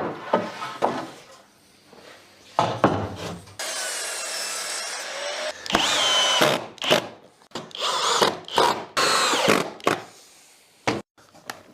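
Woodworking tools cutting wood in a series of separate strokes and bursts, with a steadier stretch of running lasting about two seconds a little over three seconds in.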